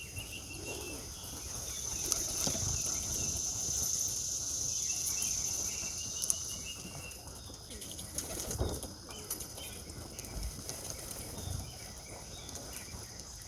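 Young racing pigeons' wings flapping now and then around the loft, with a few soft thumps. A steady high-pitched buzz and light chirping run underneath.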